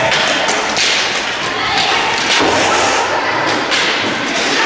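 Roller hockey play: a run of knocks and clacks from sticks and the hard ball, with quad skate wheels rolling on the hall floor.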